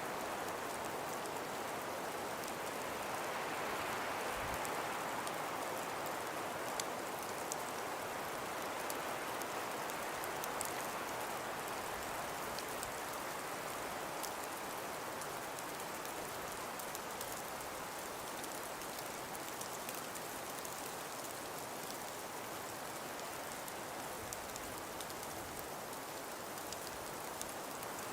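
Steady hiss of wind with snow falling, slowly swelling and easing, with faint scattered ticks throughout.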